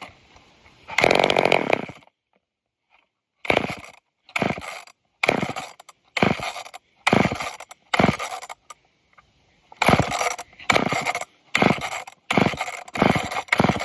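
Old off-brand two-stroke chainsaw engine firing in short bursts: one longer run about a second in, then a string of brief bursts about one a second that come quicker in the second half, with silence between. The saw is struggling to stay running, which the owner suspects is from a hard time pulling fuel through a dirty filter.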